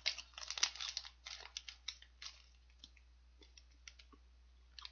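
Biting into a soft Lotte Custard cream cake in its plastic wrapper and chewing: a run of small crackles and mouth clicks for about the first two seconds, then only a few faint ticks.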